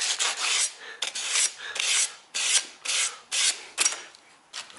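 Quick back-and-forth hand rubbing strokes on a beryllium-copper RC boat propeller, about two to three a second, stopping about four seconds in.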